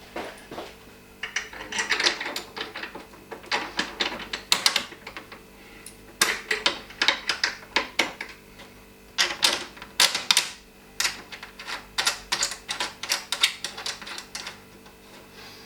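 Runs of rapid metallic clicking and clinking in several bursts as bolts are fitted to a steel strut brace and its mounting brackets by hand and with tools.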